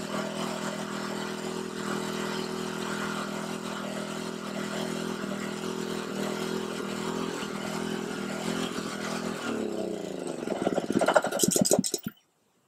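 Small Honda petrol engine of a 12-volt alternator generator running steadily while charging a battery. About nine seconds in it is shut down: its pitch sinks over a couple of seconds, it runs louder and unevenly for a moment, then stops abruptly.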